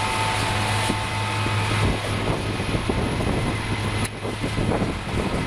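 Heavy multi-axle flatbed truck's engine running under load as it ploughs through deep mud: a steady low drone that turns rougher about two seconds in, with a brief dip near four seconds.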